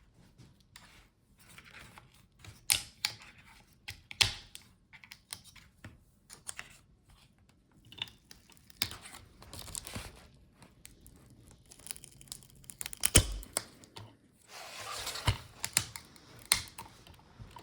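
Laptop battery being pulled free of its adhesive: tearing and crackling of the adhesive strips, with scattered clicks and taps against the plastic and one sharp knock near the end.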